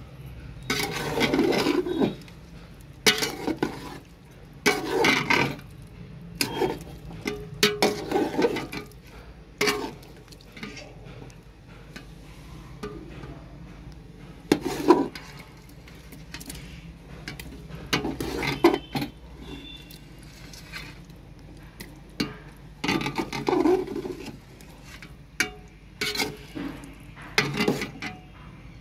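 A spoon stirring and scraping chicken curry in a metal pot, with irregular scrapes and clinks against the pot's sides.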